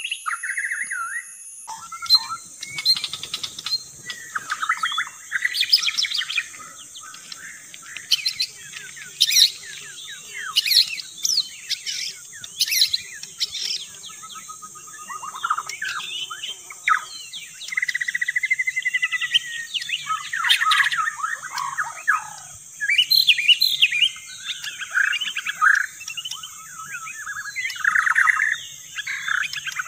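White-rumped shama (murai batu) singing a long, varied song of whistles, trills and rapid chattering phrases, with short pauses between bursts. A steady high-pitched drone runs behind it.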